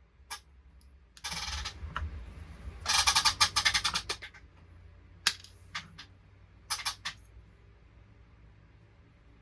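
Rapid clicking and clinking of small metal parts being handled, in two rattling bursts about one and three seconds in, followed by a few single clicks.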